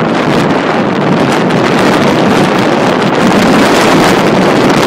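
Loud wind rushing over a handlebar-mounted microphone as an electric bike accelerates hard from about 21 to 28 mph, growing slightly louder toward the end.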